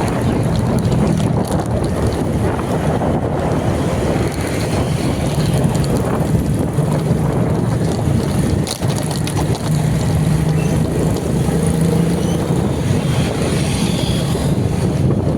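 Heavy wind rushing over the microphone, over a steady low rumble, as when recording on a moving vehicle.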